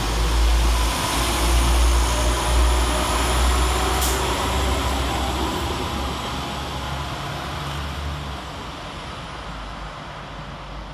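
Two coupled Class 172 diesel multiple units pulling away from the platform. Their engines and wheels give a low rumble that fades steadily as the train draws off. A single sharp click comes about four seconds in.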